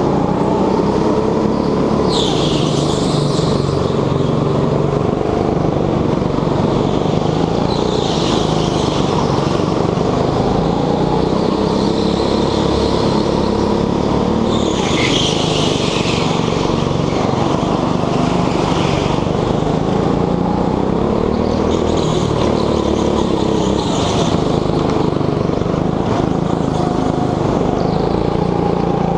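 Petrol go-kart engine heard from on board, running hard with its pitch rising and falling as the throttle is worked lap after lap. Short high-pitched bursts of noise recur several times.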